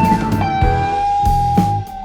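Background music: an electric guitar holding and bending long notes over a bass and drum beat, in a blues-rock style.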